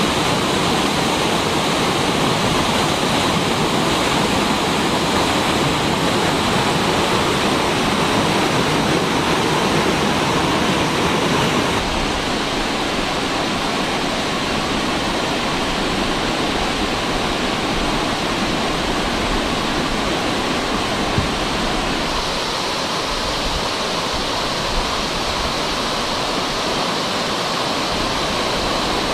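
Waterfall: a steady rush of falling water, its tone shifting slightly about twelve seconds in and again near the end.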